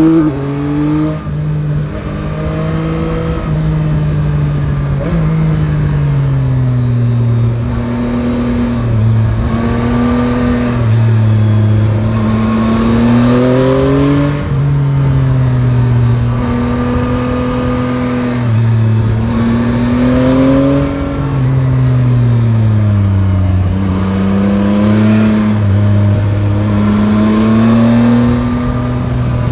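Yamaha Tracer 9 GT's CP3 889 cc inline-three engine under way, its note rising and falling several times as the throttle is opened and eased off, with a sudden dip about a second in.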